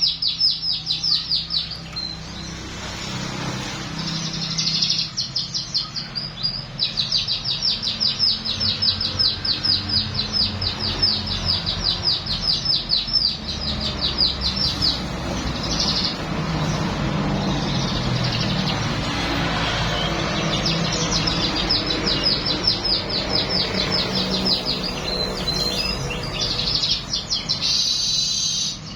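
Manyar weaver bird singing long runs of rapid, high trilled notes, a song filled with learned canary phrases, with short breaks between runs.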